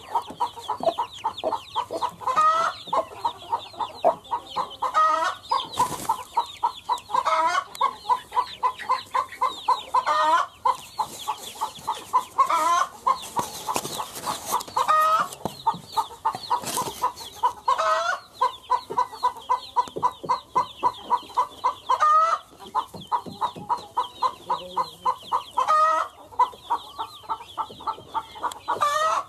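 Hen and chicks calling: a steady run of quick, short clucking notes with thin chick peeps above, and a louder rising call every two to three seconds.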